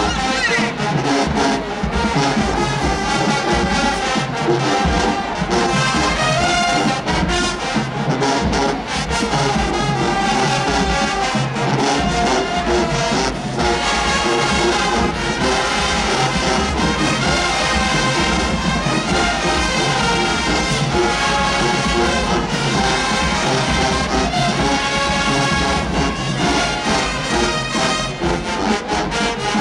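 Marching band playing a dance number: massed brass with sousaphones, over a steady, driving drum beat.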